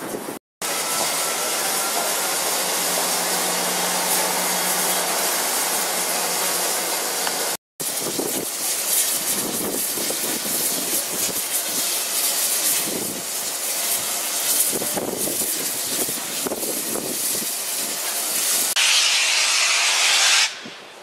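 LNER K4 steam locomotive No. 61994 hissing loudly as steam blows from its cylinder drain cocks. From about eight seconds in it starts away, its exhaust beats coming through under the hiss. A fiercer burst of hiss comes near the end, and the sound breaks off twice at edits.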